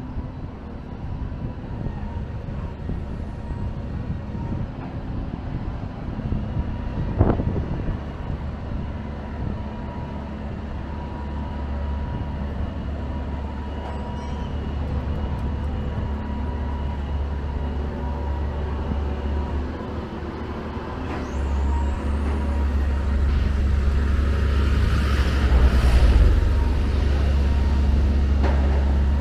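City street traffic with a steady low rumble, and a single sharp knock about a quarter of the way in. In the last third a heavy vehicle's engine rumbles close by, louder, with a hiss of air in the middle of that stretch.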